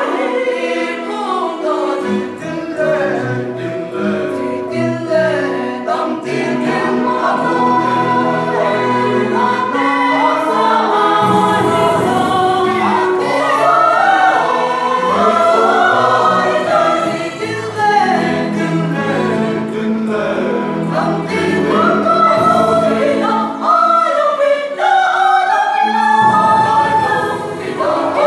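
Mixed choir of women and men singing a Christian choral song, several voice parts sounding together in long phrases.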